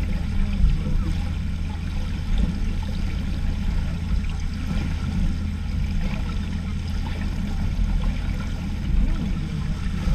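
Muffled underwater noise of a swimming pool, heard through a submerged camera: a steady low rumble with faint water gurgling and sloshing above it.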